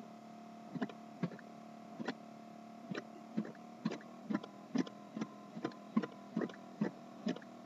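Computer keyboard keys pressed one at a time, about two a second and somewhat unevenly, as text is deleted, over a steady low electrical hum.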